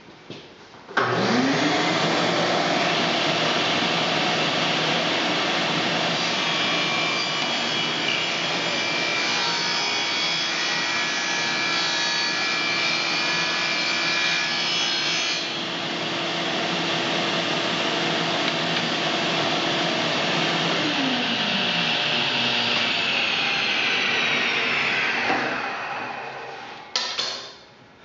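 A table saw and its dust collector start up about a second in, rising to a steady run. The spinning blade then rips a thin wood strip along the fence for about ten seconds, a harsher cutting noise over the motor hum. Near the end the machines are switched off and wind down with a falling tone.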